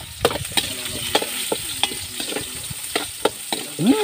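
Garlic and ginger frying in a hot wok: a steady sizzle, with a metal spoon clinking and scraping against the wok about three times a second as the ginger is scraped in and stirred.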